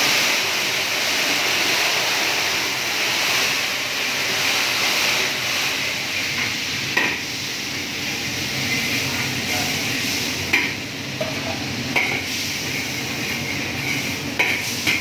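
Stir-frying in a wok over a high gas flame: a steady sizzling hiss, with a few sharp clanks of the metal spatula against the wok.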